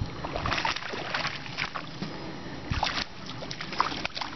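A hooked fish splashing and thrashing at the water's surface, in two bouts of splashes.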